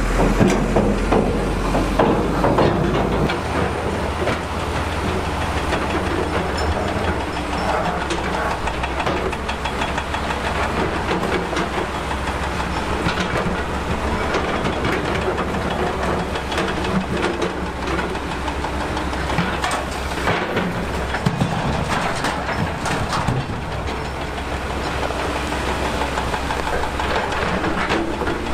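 Shantui crawler bulldozer's diesel engine running steadily under load, with irregular clanking and rattling from its steel tracks and blade. The engine note shifts about three seconds in.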